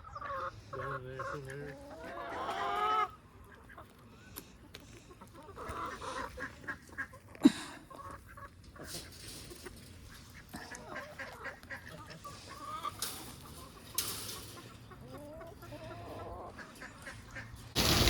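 Chickens clucking and calling, in wavering pitched calls, with one sharp crack about seven and a half seconds in. A heavy rush of rain cuts in at the very end.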